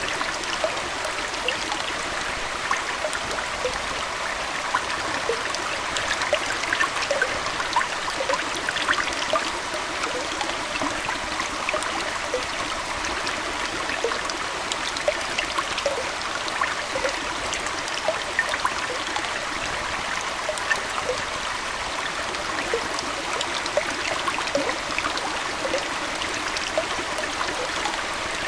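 Aquarium water trickling and burbling steadily, with many small quick plinks and splashes.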